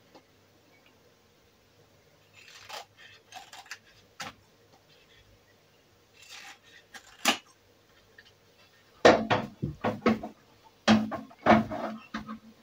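Irregular metallic clinks, clicks and knocks in short clusters, louder in the last few seconds: computer parts and screws being handled and fitted into a PC case.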